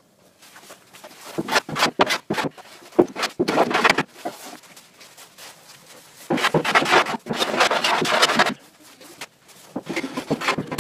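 Wood rubbing and scraping along the edge of a plywood cabinet in rough, repeated strokes, with a few knocks among them. The strokes come in two main spells, from about a second in and from about six seconds in, with a shorter spell near the end.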